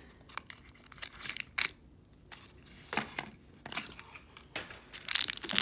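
Crinkling and tearing of a small plastic blind-bag wrapper as it is handled and torn open. It is scattered and soft at first, then dense and loud near the end.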